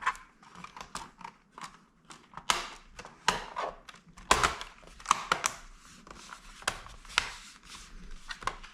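Plastic bottom cover of an HP Pavilion G-series laptop being fitted and pressed onto the chassis: irregular clicks and snaps of the plastic clips with short scraping and handling rustle.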